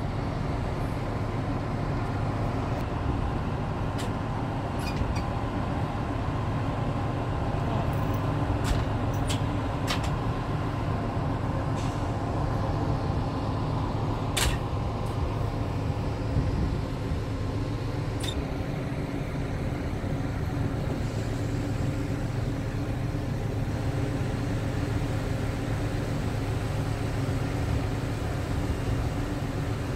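Steady low machinery hum aboard a cruise ship, from its engines and deck ventilation, with a few short sharp clicks between about 4 and 18 seconds in.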